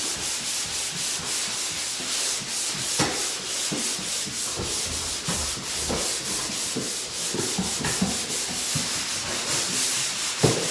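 Dried drywall joint compound being sanded by hand in quick back-and-forth strokes, a rhythmic scratching of about four strokes a second.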